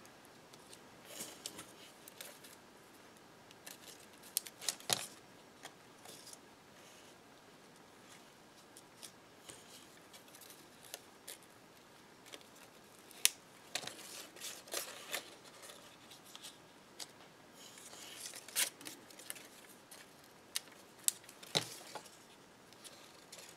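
Quiet handling of cardstock paper petals and a roll of glue dots: soft rustles with scattered sharp clicks and ticks as the petals are picked up, pressed and stuck together.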